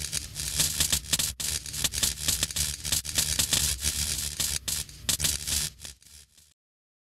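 Crackling sound effect of flying sparks over a steady low rumble, for an animated outro. It fades out about six seconds in and stops dead.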